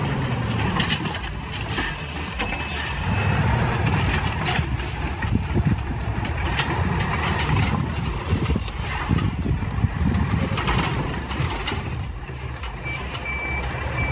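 Heavy diesel machinery running steadily, with repeated knocks and clanks as logs are handled and unloaded, and a short high beep near the end.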